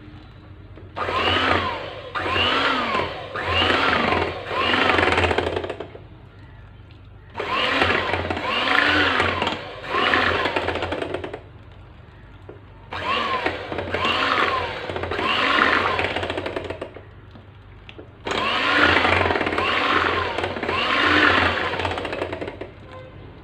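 Electric hand mixer beating runny chocolate cake batter in a bowl as hot water is mixed in a little at a time. It runs four times for about four to five seconds each, with short pauses between, and its whine rises and falls about once a second.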